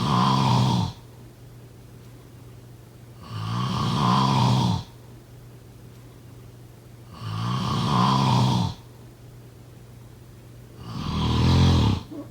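A person snoring in deep sleep, with a snore about every four seconds, each lasting about a second and a half. The first snore is already under way at the start, and three more follow.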